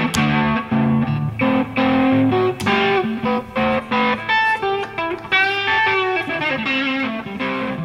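Electric guitar music: a Fender '62 Vintage Hot Rod American Stratocaster with Fralin pickups played through a Matchless HC30 valve amp, picking a melody of single notes and chords, several notes a second.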